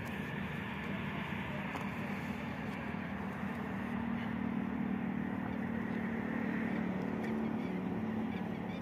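A steady low machine hum, a little stronger in the second half.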